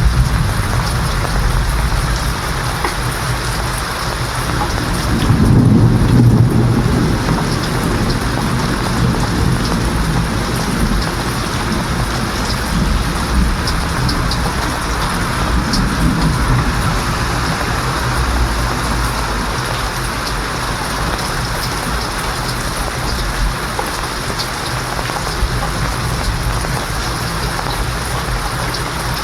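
Steady heavy rain falling, with rolling thunder rumbling low about five seconds in and more faintly again around the middle.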